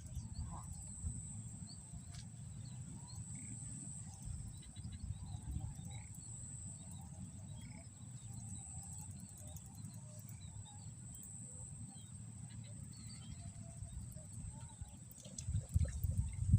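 Swamp ambience: scattered faint bird chirps over a steady high-pitched drone, with a low rumble of wind or handling on the microphone that grows louder near the end.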